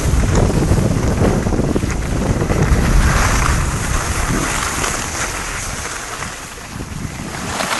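Wind buffeting the microphone of a camera carried by a downhill skier, mixed with the hiss of skis sliding over groomed snow. The noise eases for a moment near the end, then picks up again.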